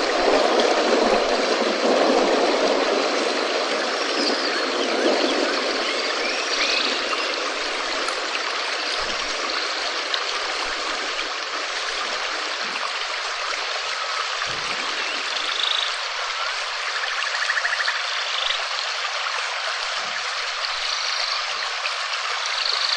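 Steady rain falling, an even rushing hiss that is fuller for the first few seconds and then thins a little. A few faint, short chirps sound over it.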